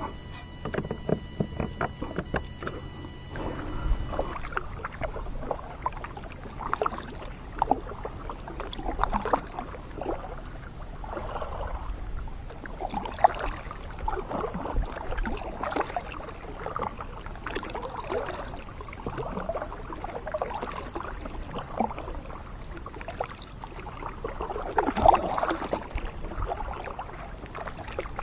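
Kayak paddle strokes: the blades dip and pull through calm water with a swishing splash about every one and a half seconds. A few knocks in the first few seconds.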